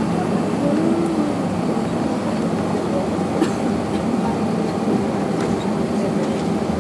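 Steady cabin noise inside an Airbus A321-214 taxiing: a low hum from its CFM56 engines at taxi power and the cabin air, with a light click about three and a half seconds in.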